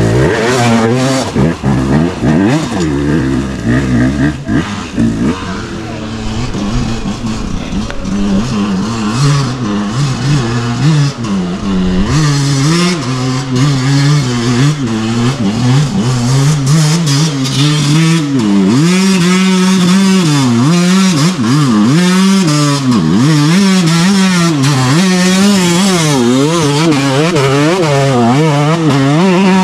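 Dirt bike engines revving hard, the pitch swinging up and down again and again as the throttle is opened and eased on a steep, rutted climb.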